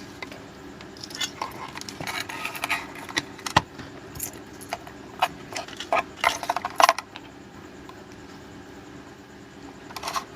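Small metallic clicks and clinks of tools and parts being handled on a workbench, thick in the first seven seconds and sparse after, over a faint steady hum.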